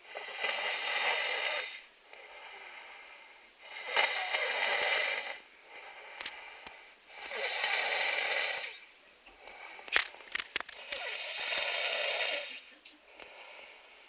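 A person snoring hard in a slow, even rhythm: four long, hissy snoring breaths about every three and a half seconds, with a few small clicks between the third and fourth.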